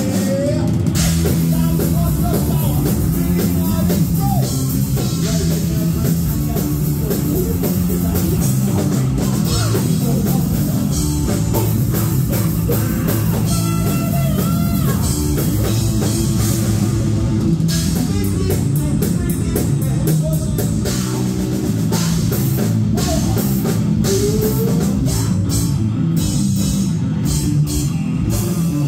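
Heavy metal band playing live, loud and dense: distorted electric guitar, electric bass and a pounding drum kit.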